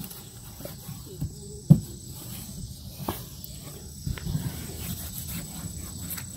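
Sanding block rubbing over wet, wood-glued fabric stretched on a curved wooden shield to press out air bubbles: soft scuffing with a few light knocks, the loudest a sharp knock a little under two seconds in. A faint steady high whine sits behind it.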